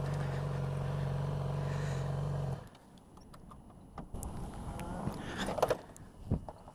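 A motorcycle engine idling steadily, then cut off suddenly about two and a half seconds in. Scattered small clicks and rustles follow.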